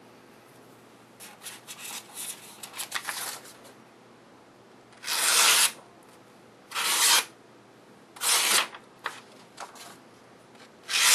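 Freshly sharpened kitchen knife slicing through a held sheet of paper. There are four long strokes, each about half a second, the last near the end. Paper rustles and crackles before and between the cuts. Cutting paper this way tests the new edge.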